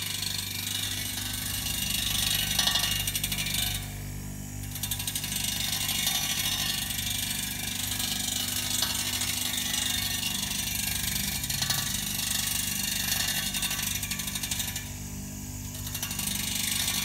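Electric grinder running with its abrasive wheel grinding the rim of a large, slowly turning steel rotor disc: a steady motor hum under a rough, hissing grind, as the wheel trues the rim and takes off its high spots for concentricity. The grinding thins out briefly about four seconds in and again near the end.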